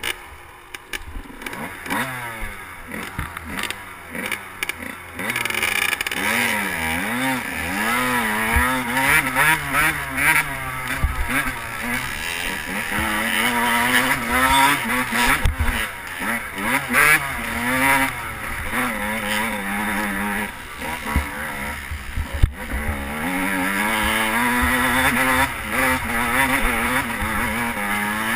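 Dirt bike engine running under load, its pitch rising and falling again and again with throttle and gear changes. It is quieter for about the first five seconds, then louder.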